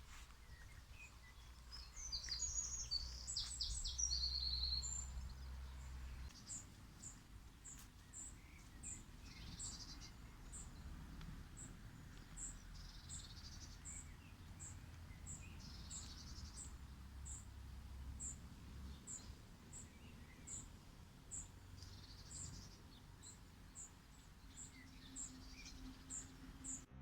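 Wild birds calling. A short, quick, high song phrase comes about two seconds in, then a thin high chirp repeats about twice a second, with a few softer calls among it. A low background rumble lies underneath.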